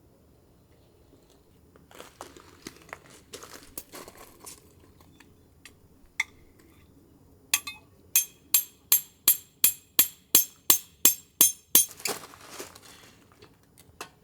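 Small handling clicks and clinks, then a run of about a dozen sharp, evenly spaced taps, about three a second, then rustling.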